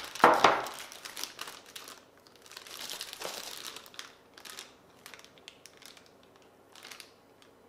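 Clear plastic packaging bags holding cables crinkling as they are handled, loudest in a burst right at the start, then in softer, irregular rustles.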